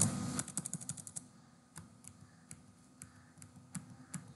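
Computer keyboard being typed on: a quick run of keystrokes in the first second or so, then single key presses every half second or so.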